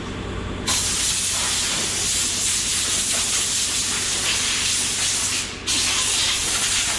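6-inch dual-action sander running against automotive clear coat with 1500-grit paper, giving a steady loud hiss. It starts about a second in, cuts out for a moment near the end and starts again.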